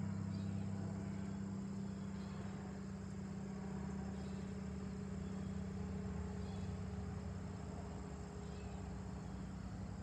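Distant Cessna 402C twin piston-engine aircraft, a steady low drone of engines and propellers that fades slowly as the plane moves away high overhead. Insects buzz steadily in the background.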